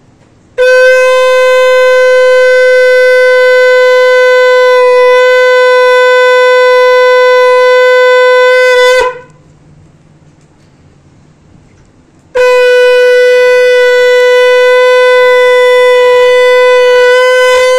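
A conch shell (shankha) blown in two long, loud, steady blasts, the first about eight seconds and the second about five, as is customary at a Hindu puja.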